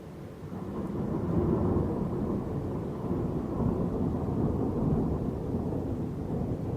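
Rolling thunder: a long, low rumble that swells about half a second in and keeps rumbling without a break.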